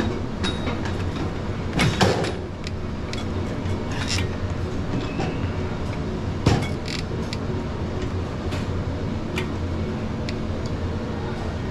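Gym ambience: a steady low rumble with scattered clicks and a few sharp knocks and clanks, the loudest about two seconds in and again past six seconds.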